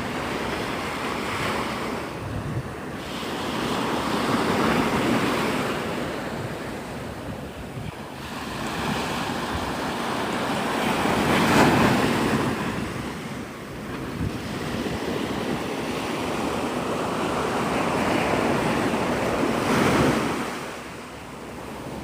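Surf breaking on the beach, the wash swelling and fading in three surges several seconds apart, with wind buffeting the phone's microphone.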